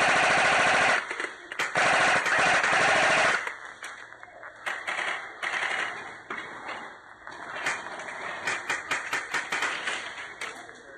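Airsoft guns firing on full auto: two long loud bursts in the first three seconds, then scattered shorter bursts and single shots.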